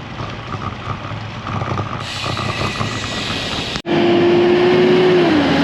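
Wind rushing over an action camera's microphone while cycling in strong wind. About four seconds in the sound cuts off for an instant and comes back louder, with a steady motor-vehicle hum that drops in pitch.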